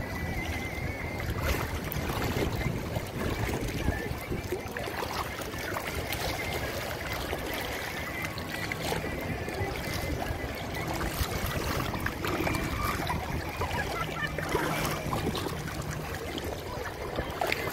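Outdoor seaside ambience: water lapping and wind on the microphone, with faint voices of people in the background.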